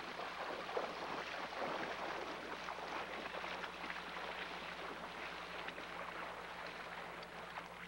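Waders sloshing and splashing through shallow river water in a run of wading steps, growing a little fainter toward the end.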